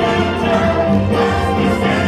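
Orchestral music with a choir singing, loud and continuous.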